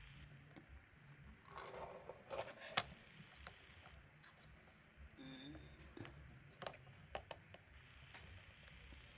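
Faint, scattered clicks and scrapes of small hand tools against a phone, the loudest a single sharp click about three seconds in, with more clicks near the end, over quiet room tone.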